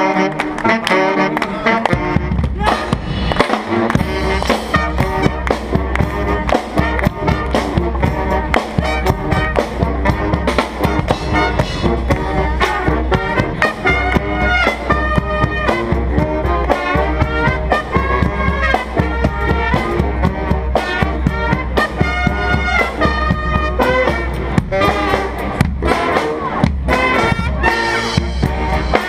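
Brass street band playing a jazz tune live: trumpets and saxophones over a tuba bass line and a steady drum beat.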